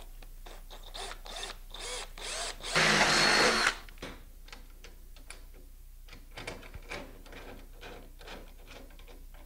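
Cordless drill boring through a solar panel's aluminium frame: a few short bursts, then one loud run lasting about a second. After that, light metal clicks as a screwdriver fastens a stainless bracket to the frame.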